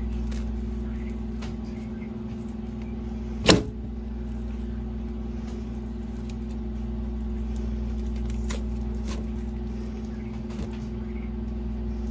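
Steady low machine hum with a couple of fixed tones, and one sharp click about three and a half seconds in.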